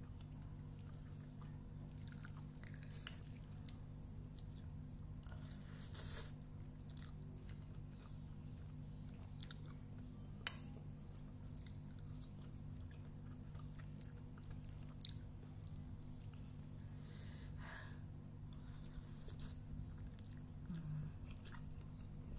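Close-up chewing and mouth sounds of someone eating instant fried noodles with vegetables, with scattered soft clicks and one sharp click about halfway through.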